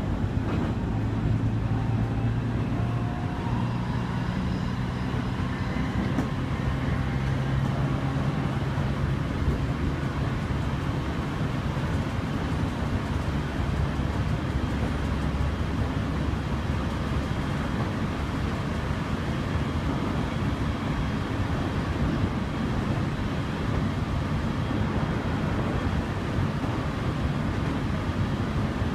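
JR Kyushu 815 series electric train (KuMoHa 815-25) running on a downgrade, heard from behind the cab: a steady rumble of wheels on rail, with low steady hum tones under it for the first several seconds that then fade into the rumble.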